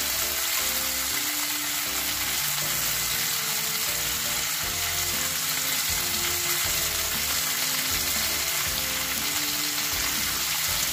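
Fish sizzling steadily in margarine on a hot nonstick grill pan, under background music.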